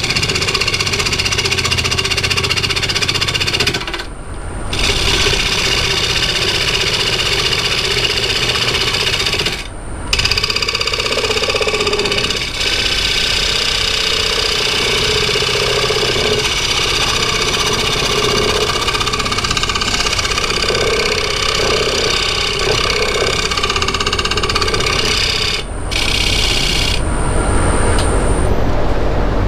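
Woodturning lathe running while a tool works the wood, a steady rattling whir with three brief breaks.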